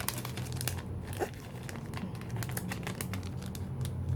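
Packaging crinkling and crackling as hands work to free a hairband from it, over a steady low hum.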